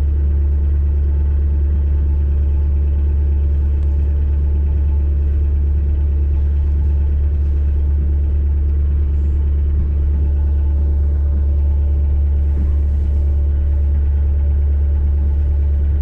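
Steady, loud low rumble of a moving vehicle.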